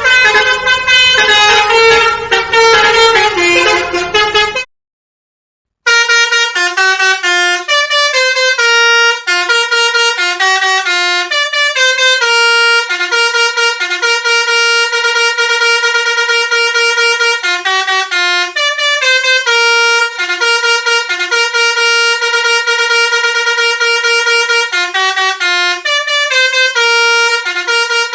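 Musical multi-tone bus horns playing tunes of stepped notes. A first horn clip ends about four and a half seconds in. After a second of silence, a cleaner recording of another horn plays a long melody mixing held notes and quick runs.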